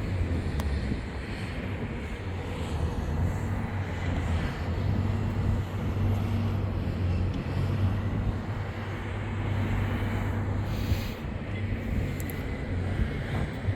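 Steady low drone and rumble of a large cruise ship under way, with an even hiss over it. A brief higher hiss comes about eleven seconds in.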